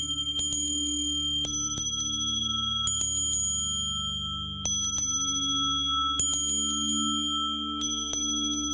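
Meditation music of small high-pitched bells, struck in quick clusters of several strokes about every one and a half seconds, each cluster ringing on, over a low wavering drone.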